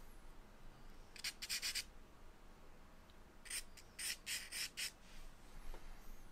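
Charcoal scratching across drawing paper in short, quick strokes as light guide lines are sketched: a run of about four strokes a second in, then about six more between three and a half and five seconds in.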